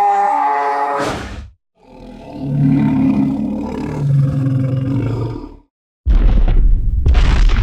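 Mumakil creature sound effect, elephant-like: a high trumpeting call ends about a second and a half in, then after a brief gap comes a deep rumbling roar lasting about four seconds. About six seconds in a sudden loud crashing boom begins.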